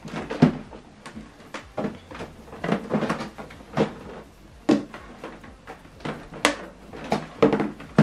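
Irregular knocks, bumps and clatter of an HP Envy Inspire 7220e plastic inkjet printer being handled, turned and shifted on a table.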